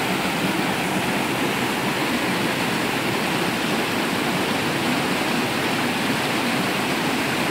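Creek water rushing steadily down a small cascade between boulders.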